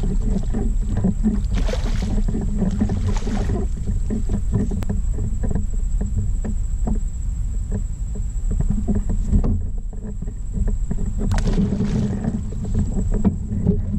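Water splashing and knocks on a kayak hull as a redfish is netted and lifted, then released back into the water near the end, over a constant low rumble on the GoPro's microphone.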